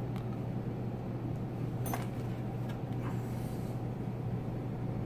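Steady low background hum, with a few faint rustles and ticks of braided fishing line being pulled and slid between the fingers, mostly around the middle.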